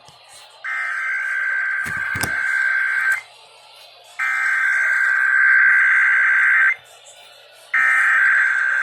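Emergency Alert System SAME header data bursts over AM radio: three harsh digital screeches of about two and a half seconds each, a second apart, opening a required weekly test. A brief low thump comes about two seconds in.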